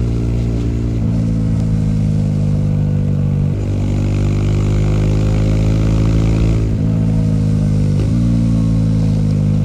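Bajaj Dominar 400's single-cylinder engine running at fairly steady revs, its pitch shifting in brief breaks about four times. A hiss joins for a few seconds in the middle.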